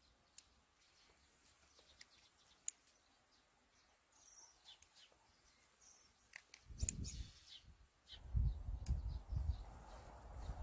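Faint chirps of small birds and a few light clicks over near silence, then from about six and a half seconds in, irregular low rumbling thumps on the microphone.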